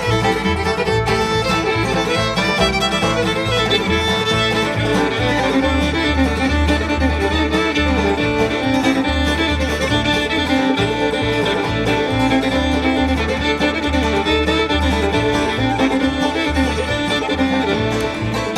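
Live bluegrass band playing an instrumental stretch: fiddle and banjo to the fore, with guitar and steady, rhythmic low bass notes underneath.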